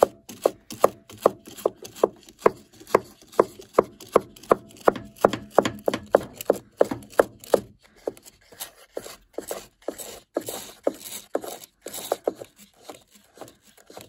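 Stiff brush scraping lint off the fins of a heat pump tumble dryer's heat exchanger in quick, repeated strokes, about three a second, thinning out and quieter after the middle. The exchanger is clogged with months of lint.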